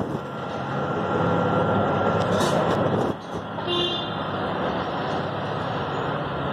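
Steady busy-street traffic noise with engines running, and a short horn toot about halfway through.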